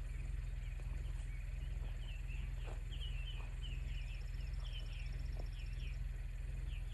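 Birds chirping, a quick run of short high calls, over a steady low hum. A thin high buzz joins for a couple of seconds in the middle.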